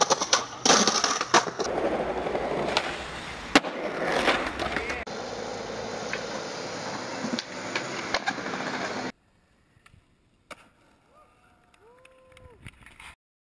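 Skateboard wheels rolling on pavement, broken by sharp snaps and clacks as the board is popped and lands; the loudest hit comes about three and a half seconds in. The last few seconds are much quieter, with a single knock.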